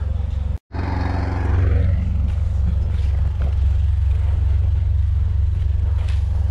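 An engine running steadily with a low, even drone, cut by a brief silent gap about half a second in.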